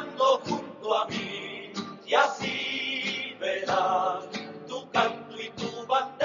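Music with a group of voices singing, including men's voices, with a held, wavering note about three seconds in.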